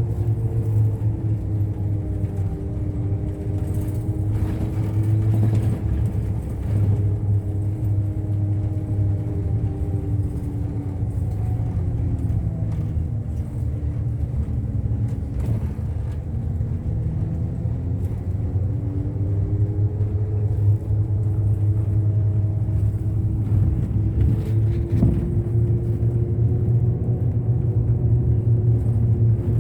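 Route bus driving, heard from inside the cabin: a steady low engine rumble with a whine that falls as the bus slows about halfway through, then rises again as it picks up speed.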